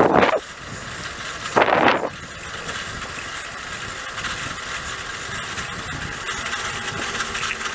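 Steady rolling noise of a bicycle ridden along an asphalt street, picked up by a camera carried on the ride. Two short, louder bursts come in the first two seconds.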